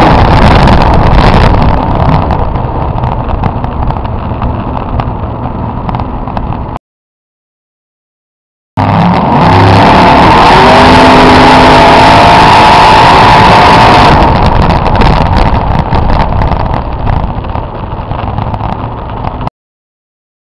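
Mud-bog 4x4 truck engine at full throttle, loud enough to overload the recording. It eases off about two seconds in, then cuts out abruptly for about two seconds near the middle. It comes back at full throttle with a climbing pitch, eases off again and cuts out near the end.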